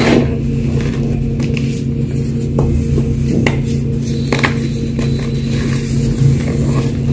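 Gym chalk crunching and snapping as it is crushed, several sharp crunches spread over the seconds, over a steady low hum.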